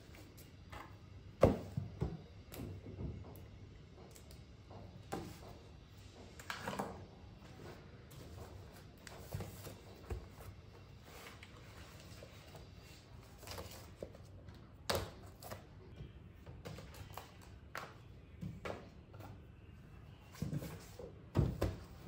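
Scattered faint knocks and thuds, as of things being handled and set down, the loudest about a second and a half in and a few more close together near the end.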